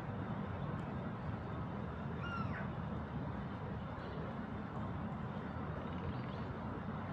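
A single short bird call about two and a half seconds in, over a steady low rumbling background noise.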